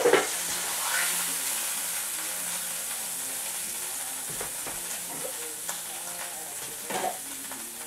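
Hot oil and beef grease sizzling in a frying pan, a steady hiss that slowly dies down, with a few faint knocks of utensils.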